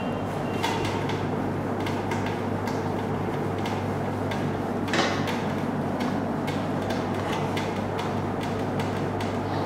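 A cloth wiping a marker whiteboard in repeated irregular strokes, with one sharper knock about five seconds in, over a steady low hum.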